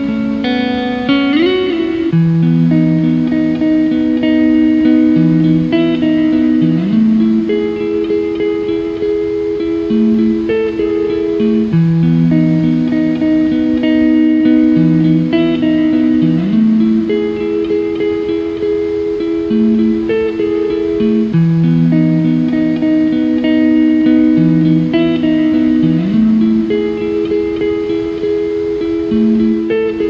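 Slow, calm instrumental background music: long held notes over a chord pattern that repeats about every nine seconds.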